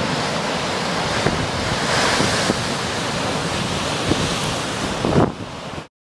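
Heavy storm surf on a lake breaking against a rocky shore, with strong wind buffeting the microphone and a few dull low thuds of waves striking rock. It drops and cuts off just before the end.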